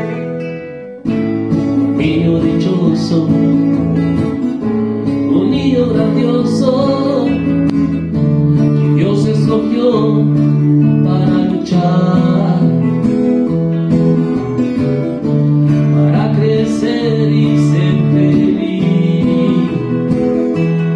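Two acoustic guitars playing a slow ballad, one strumming chords, with a man singing over them.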